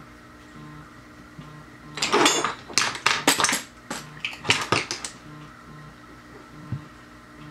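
A run of quick clattering knocks from small hard objects, makeup products being picked up and handled on a desk, bunched from about two to five seconds in. Faint background music with a soft repeating low beat runs underneath.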